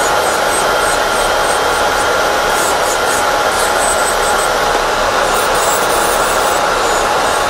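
Electric nail drill running steadily with a thin whine, its bit grinding an old manicure off a fingernail, over the even whir of a nail dust-collector fan.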